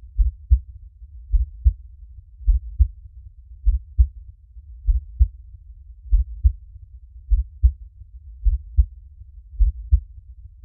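Heartbeat beating slowly and steadily, a low double thump (lub-dub) about once a second.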